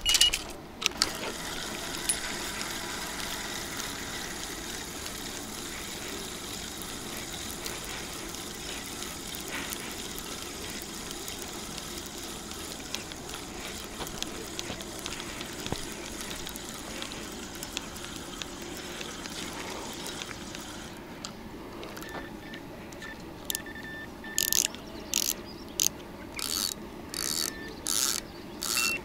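Fishing reel being wound on a feeder rod, its gearing running with a steady mechanical whirr. In the last few seconds this changes to sharp, evenly spaced rasping strokes about one every 0.6 seconds.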